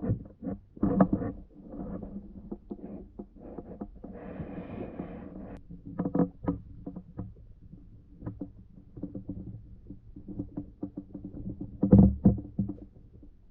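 Underwater clicks and knocks in an irregular run, with a longer rasping grunt about four seconds in and a louder cluster of knocks near the end, which the uploader takes for suckers making sounds, like a catfish out of water.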